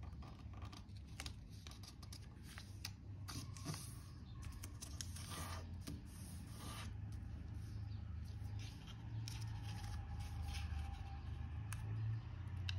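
A sheet of origami paper being folded and creased by hand: crinkling and rustling with many small crackles as fingers press and rub along the folds. A steady low hum runs underneath.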